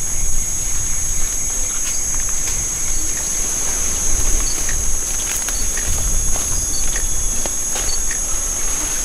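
Forest insects trilling steadily at a high pitch, with scattered snaps and rustles in the undergrowth and a low rumble underneath.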